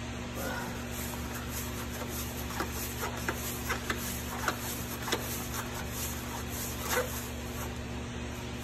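Light clicks and scrapes, a dozen or so between about two and a half and seven seconds in, the loudest near the end, as the fuel filter housing on a Cummins X15 is threaded back on by hand, over a steady low hum.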